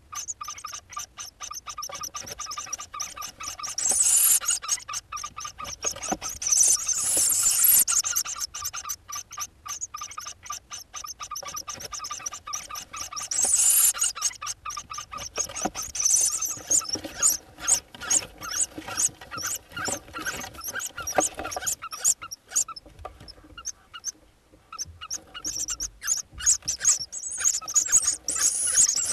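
Hoopoe nestlings inside a nest box giving high, hissing begging calls in several short bouts. Between the bouts come rapid scratching and scraping as they clamber on the box walls.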